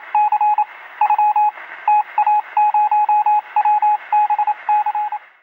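Morse-code-style beeping: a single steady beep tone keyed on and off in short and long pulses, in quick groups, over a bed of radio static. The beeps and static stop shortly before the end.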